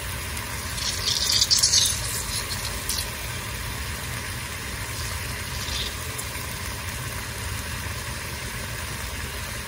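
Lemon halves squeezed by hand, the juice dripping into a pan of fried tomato paste, with short hissy bursts about a second in and smaller ones near three and six seconds, over a steady low hum.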